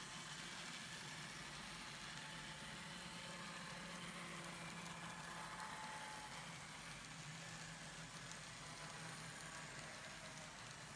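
N scale model freight train, DC-powered with no sound unit, running along the track: a faint, steady rolling hiss of small wheels on rail with a faint thin whine.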